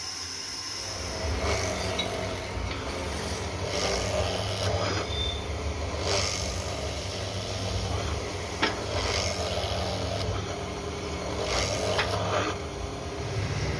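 Motor-driven wood lathe spindle running with a steady hum, while a turned wooden piece is pushed onto its spinning bit, cutting into the wood in repeated rasping bursts. The cutting starts about a second in.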